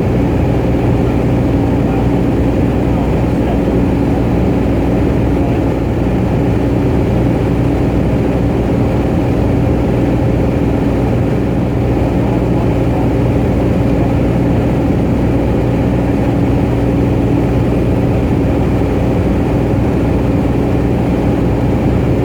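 Cabin drone of a Cessna 210 Centurion in flight: the six-cylinder piston engine and propeller running steadily at a constant pitch, with wind and airframe noise.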